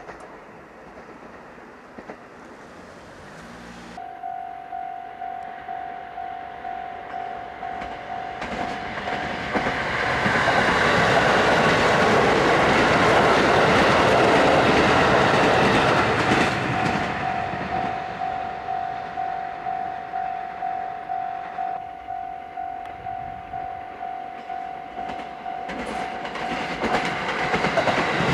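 Japanese railway level-crossing alarm ringing in evenly repeated dings. Partway through, a train passes over the crossing, its wheels rumbling and clattering loudly and drowning the alarm for several seconds. The alarm then goes on ringing.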